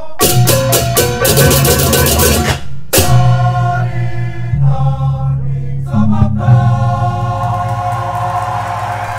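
Balinese baleganjur gamelan playing its closing: a dense flurry of ceng-ceng cymbal clashes over the drums and gongs, a brief break just before three seconds, then held gong and reyong tones ringing and slowly fading.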